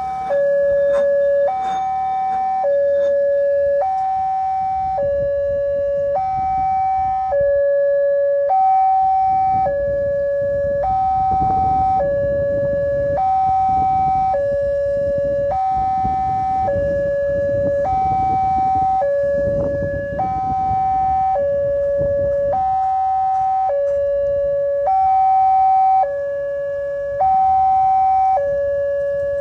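Railway level-crossing warning alarm sounding a two-tone hi-lo signal. It alternates evenly between a lower and a higher tone, each held about three-quarters of a second, and sounds while the crossing lights flash and the barrier is down for an approaching train.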